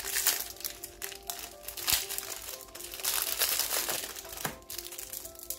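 Plastic snack wrapper crinkling in irregular bursts as it is handled and opened, over background music with steady held tones.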